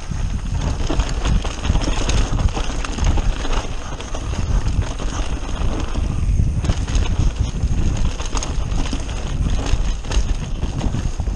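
Mountain bike riding fast down a rough dirt downhill trail: steady heavy wind rumble on the microphone with constant rattling and knocking of the bike over bumps and roots.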